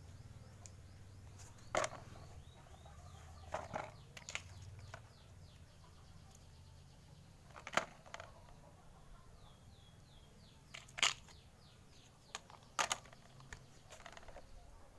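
Half a dozen sharp, short knocks or clicks at irregular intervals, over faint bird chirping and a low steady hum.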